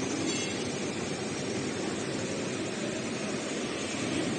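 Richpeace CNC heating-wire sewing machine running, a steady mechanical drone with no distinct strokes.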